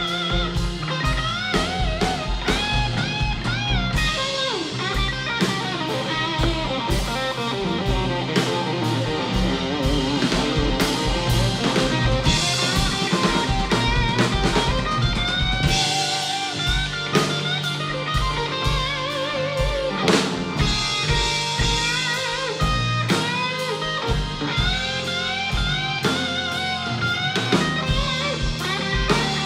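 Live band playing a slow blues-rock song: an electric guitar solo with bent, wavering notes over bass guitar, drum kit and keyboard.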